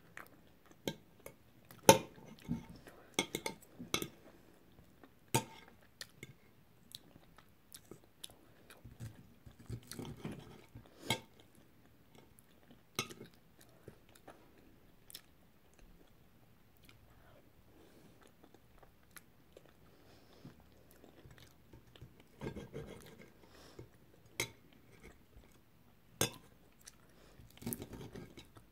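Knife and fork clicking and tapping against a plate while food is cut and picked up, with the loudest clink about two seconds in. Chewing and eating sounds come in between.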